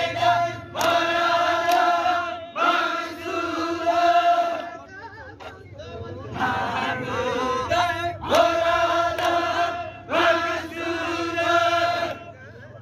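Zikri chogan: men's voices chanting a devotional song together, in long held phrases of about two seconds with short breaks between them.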